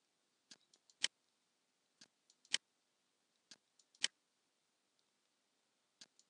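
Computer mouse button clicking: a few sharp clicks, the loudest three about a second and a half apart, each with a fainter click shortly before it.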